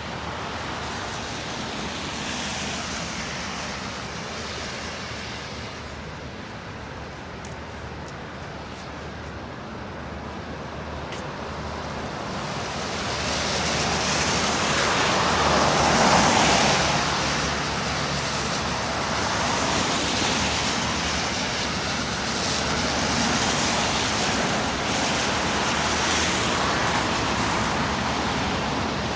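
City traffic moving on snow-covered roads: a steady rushing of tyres and engines, swelling as a vehicle passes close about halfway through and then settling back.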